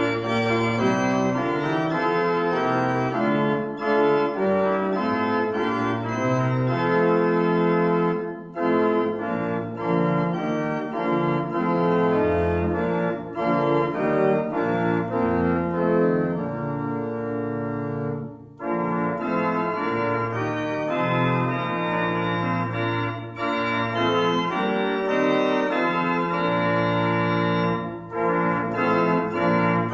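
Church organ playing a hymn in sustained chords, with short breaks between phrases.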